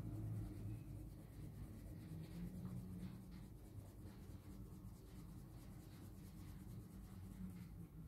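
Faint scratching of a colored pencil shading on drawing card, over a low background hum.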